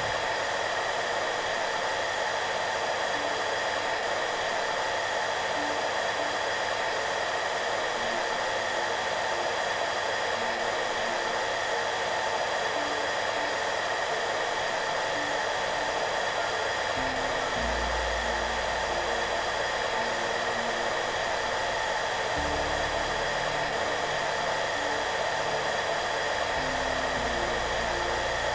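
Hair dryer running steadily, an even airy hiss with no change in speed, with soft background music of low, gentle notes underneath; a deeper bass line joins a little past halfway.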